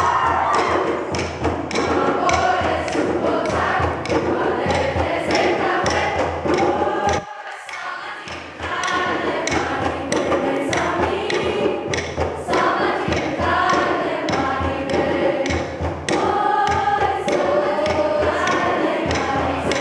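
Mixed choir singing with steady rhythmic thumps marking the beat. About seven seconds in, the sound drops away for a second and a half before the choir comes back in.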